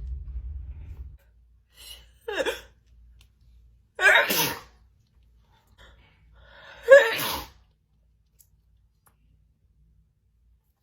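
A woman sneezing in a fit: three sneezes about two and a half seconds apart, the first smaller and the last the loudest.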